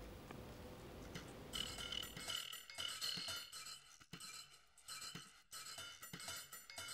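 Faint music of light metallic clinking and bell-like strikes, several a second, starting about a second and a half in.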